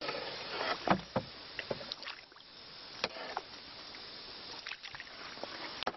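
Canoe paddle splashing and slapping in the water, with a few sharp slaps and knocks over a steady wash.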